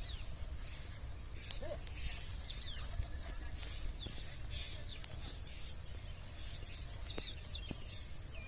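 Repeated short, falling bird chirps over a steady high-pitched insect drone, with a constant low rumble underneath and a few sharp clicks.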